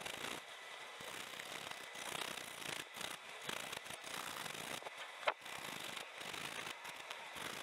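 Bahco carbide-insert hand scraper rasping in short, irregular strokes across the hard, scored cast-iron slide-valve port face inside a steam chest, with one sharp click about five seconds in. The iron is hardened, so each stroke mostly takes off dirt rather than metal.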